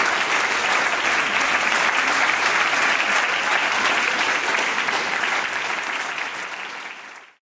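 Audience applauding, a dense steady clapping that fades out over the last second and a half.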